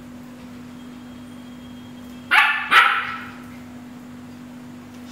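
A puppy barking twice in quick succession, about half a second apart, a little over two seconds in; the second bark trails off with some room echo.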